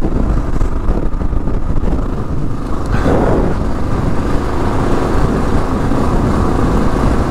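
A 2022 Kawasaki KLR 650's single-cylinder engine running under way off-road through its Lexx MXe slip-on exhaust, mixed with steady wind noise on the microphone. About three seconds in, the engine note swells briefly.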